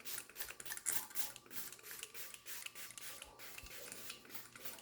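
Trigger spray bottle of alcohol squeezed over and over, short hissing sprays about three or four a second, misting bagged vegetables to sanitise them.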